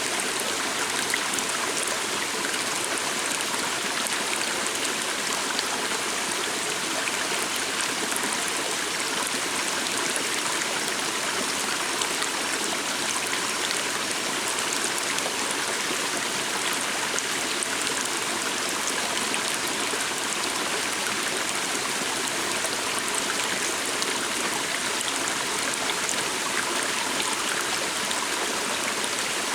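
Forest stream flowing steadily, a continuous even rush and trickle of water.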